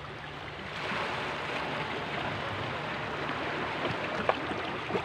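Steady rushing of sea surf along a rocky shore, with a couple of small clicks near the end.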